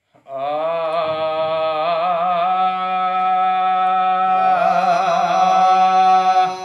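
A man's voice singing the long held opening note of a Sindhi hamd, a devotional hymn praising God, with wavering melismatic ornaments. It starts about a quarter of a second in and carries on unbroken.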